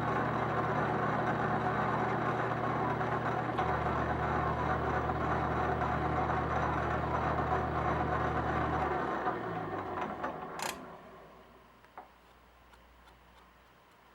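Metal lathe running in back gear while a knurling tool presses into a metal knob, a steady machine hum with a grinding hiss. About nine seconds in the lathe is switched off and winds down to a stop, with a brief ring and a click as it falls quiet.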